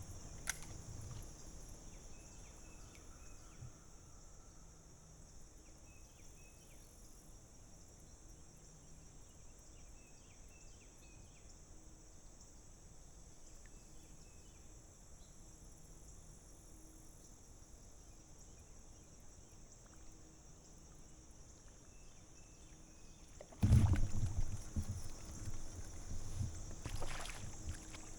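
Quiet creek ambience with a steady high-pitched insect buzz and faint short chirps. About 24 s in, a sudden loud spell of knocking and water splashing from the kayak.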